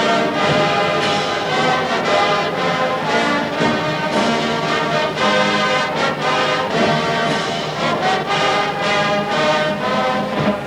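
Marching band playing a brass-heavy tune, trombones and trumpets to the fore, with a steady beat of regular note changes.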